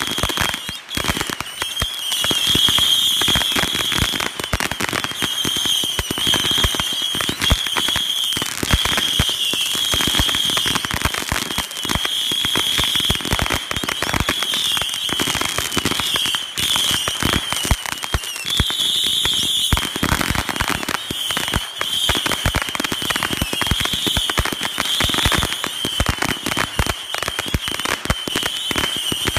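Fireworks going off nonstop: a dense, irregular stream of pops and crackles as burning balls are shot back and forth, with a steady high-pitched whine running underneath.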